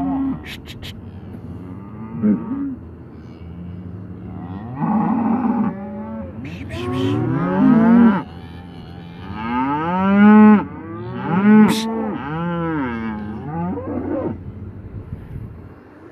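Cattle mooing over and over, a string of long calls that rise and fall in pitch, some overlapping, the loudest about ten to twelve seconds in.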